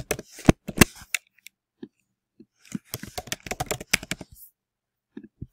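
Typing on a computer keyboard: two quick runs of keystrokes, the second starting nearly three seconds in, with a couple of soft low knocks near the end.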